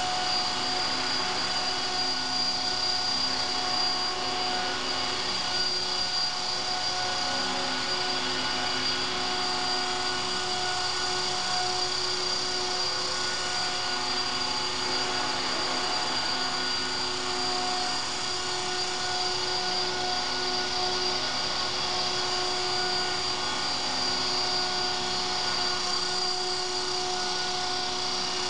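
CopterX 450 Pro electric RC helicopter in hovering flight: a steady, high-pitched whine of the brushless motor and drive gears over the whirr of the rotor blades, shifting slightly in pitch as it is flown.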